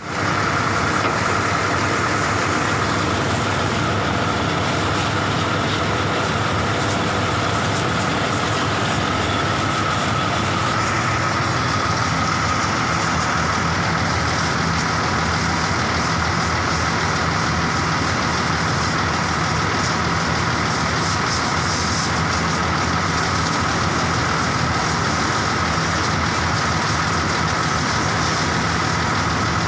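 A motor runs steadily with an even hum, and a high hiss of water spraying into a bus engine bay grows stronger about eleven seconds in.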